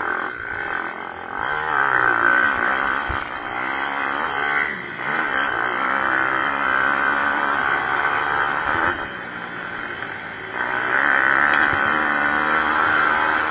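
Several pit bike engines revving on the track, their pitch rising and falling as the riders work the throttle and shift. A dip about nine seconds in is followed by a louder surge.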